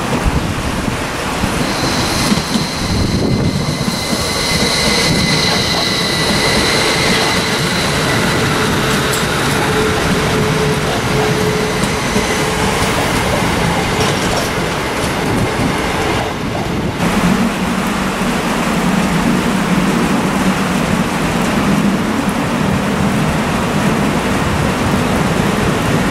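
Northern Class 333 electric multiple unit running over the station pointwork, its wheels squealing in high, steady tones for about ten seconds over the rumble of the train and the rain. After a cut about two-thirds of the way in, only rain noise and a low steady drone are left.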